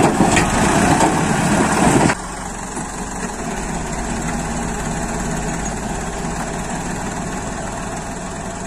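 The motor of a toy dump truck is running. For about the first two seconds there is a louder, harsher noise, which cuts off suddenly. After that the motor hums steadily and more quietly as the truck drives off.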